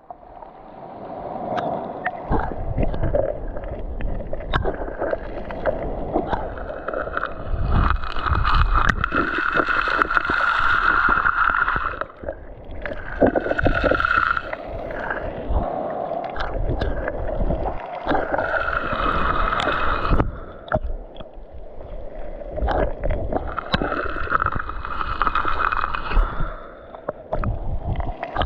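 Sea water sloshing and gurgling close around the microphone, swelling in surges every five or six seconds as waves pass.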